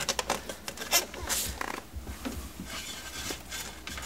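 Handling noise under a car's dashboard: rustling, scraping and scattered sharp clicks of plastic trim and wire as a wire is fed through, with one loud click about a second in, then softer scuffs.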